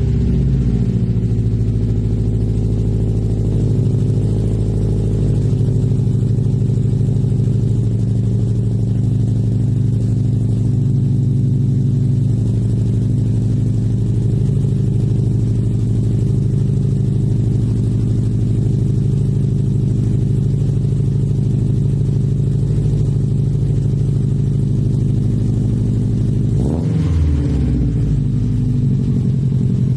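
Subaru Impreza WRX's turbocharged flat-four engine idling steadily right after a cold start. It settles in the first couple of seconds, with a brief rise in engine sound near the end.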